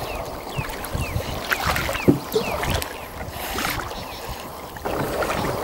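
Water sloshing and splashing as a warthog swims, growing busier near the end. Short high chirps that fall in pitch repeat about twice a second over the water noise.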